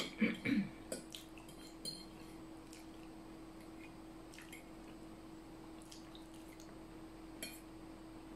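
Quiet eating sounds: a metal fork clicking and scraping on a plate and wet chewing of sticky rice zongzi, as scattered small clicks over a steady faint hum.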